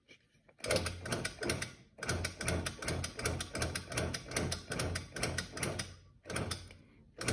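Shop press driving the front crankshaft seal into the timing cover: a run of rapid mechanical clicks, about three a second, over a low hum. The clicking pauses about six seconds in, then picks up again, with a sharp click near the end.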